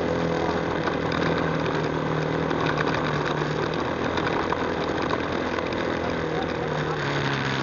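ATV engine running at a fairly steady pitch while the quad rides along a rough dirt trail.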